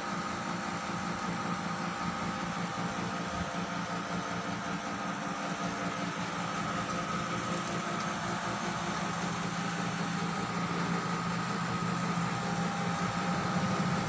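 Steady mechanical hum with a constant low drone and a higher steady tone above it, slowly getting a little louder toward the end.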